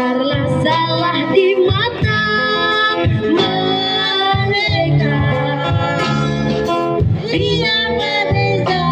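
A woman singing a Malay pop song with vibrato, accompanied by strummed acoustic guitar and a steady bass line.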